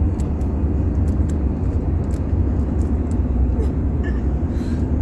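Rubik's cube being turned one-handed, its layers clicking in short irregular bursts, over a steady low rumble.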